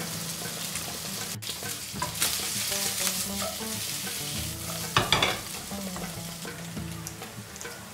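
Diced guanciale sizzling in a hot nonstick frying pan with no added oil as its fat renders, the pieces stirred and tossed in the pan, with a louder burst of stirring noise about five seconds in.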